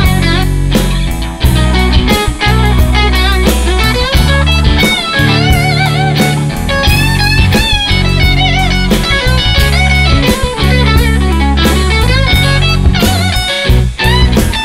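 Blues-rock instrumental passage: a lead guitar plays wavering, bent notes with vibrato over a steady drum beat and a heavy low end.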